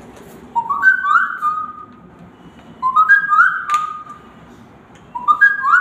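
A girl whistling an imitation of a Samsung phone's message notification tone: a quick run of rising notes ending on a held note, three times about two seconds apart.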